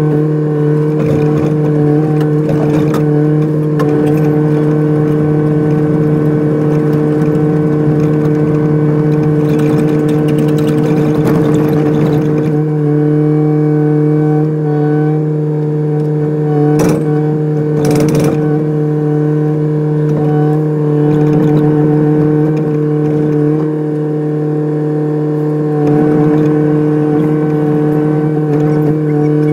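Kubota excavator's diesel engine running steadily with a constant hum, a rattling stretch about a third of the way through, and two sharp knocks a little past halfway.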